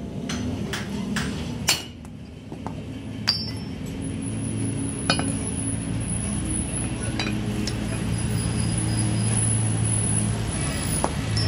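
Hammer strikes on the steel torque-rod bracket and bush of a truck, about two a second for the first two seconds. Then come scattered sharp clinks of loose steel parts being handled, over a steady low hum.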